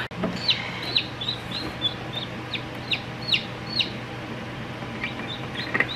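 Newly hatched chicks peeping: a run of short, high peeps, each sliding down in pitch, about two or three a second, easing off and then picking up again near the end.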